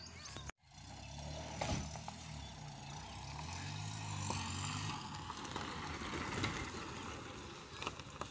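Small van's engine running at low revs as it moves slowly along a gravel track, with a light crackle of stones under the tyres. The sound starts after a short dropout about half a second in.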